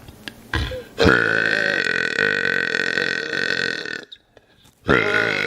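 A man burping loudly: one long, drawn-out burp of about three seconds, then a second burp starting near the end.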